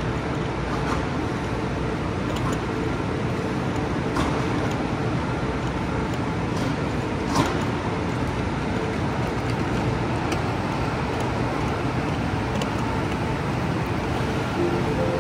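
Steady rumbling ambience of a busy high-speed rail station platform, with a faint steady hum and a few scattered clicks and knocks.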